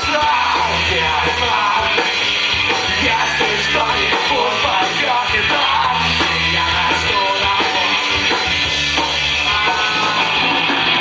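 A live rock band playing: electric guitars and a drum kit with a singer over them, loud and continuous.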